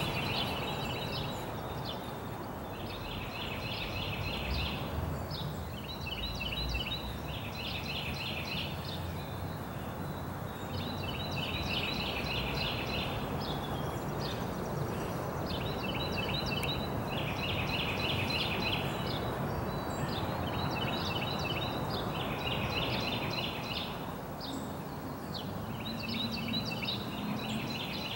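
A songbird singing a short phrase of rapid repeated notes, again and again every few seconds, over steady outdoor background noise.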